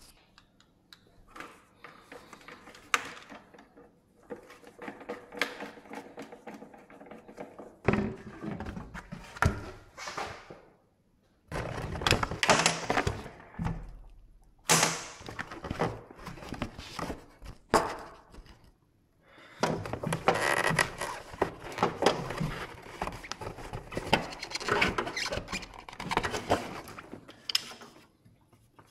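Irregular thunks, knocks and scraping of tools and metal parts being handled in vehicle dismantling work, stopping briefly twice.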